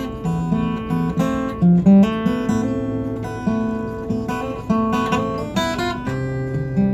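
Acoustic guitar played solo: an instrumental passage of ringing chords and notes that change every fraction of a second.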